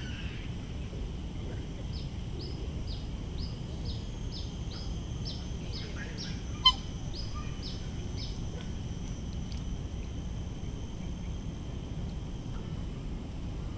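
A bird calling a long run of short, evenly spaced high notes, about two a second, that stops a little past halfway, over a steady low background rumble. A single sharp click about six and a half seconds in.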